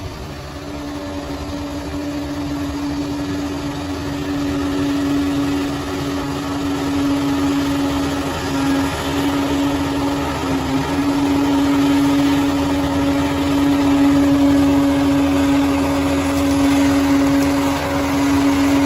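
Bulldozer's diesel engine running steadily, with a constant pitched whine over a low rumble, growing gradually louder.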